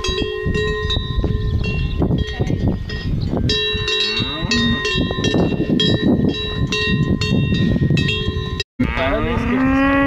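Cowbells on grazing cattle ringing in steady, overlapping tones, over a low rushing noise. The sound drops out for a moment near the end, and a cow moos just after.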